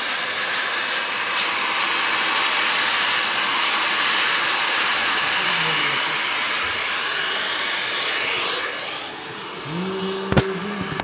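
Handheld hair dryer blowing steadily on hair, then switched off about nine seconds in. A brief hum and a sharp click follow near the end.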